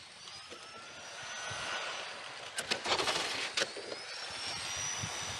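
Electric 1/10-scale RC F1 cars with 21.5-turn brushless motors running past, their high motor and gear whine rising and falling in pitch as they accelerate and slow. A quick burst of sharp clacks comes about halfway through.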